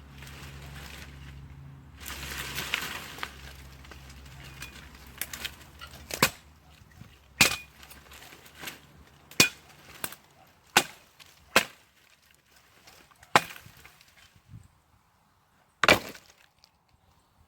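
A run of about ten sharp knocks or chops, irregularly spaced about a second apart, the last and loudest near the end, after a few seconds of rustling noise over a low hum.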